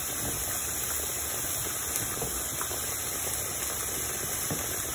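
Diced bell peppers and chopped herbs sizzling in hot olive oil in a nonstick frying pan, a steady hiss, with a few faint scrapes as a spoon stirs them.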